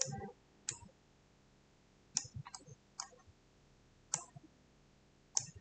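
Computer mouse clicking: a handful of short, sharp single clicks at irregular intervals, with a few close together a little after two seconds in.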